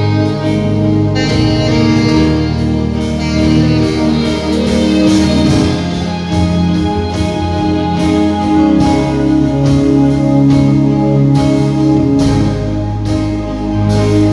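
Live band music: a saxophone plays the melody over keyboard and guitar, with a steady drum beat.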